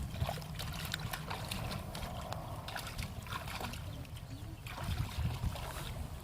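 Water trickling and splashing in many small, irregular spatters over a constant low rumble.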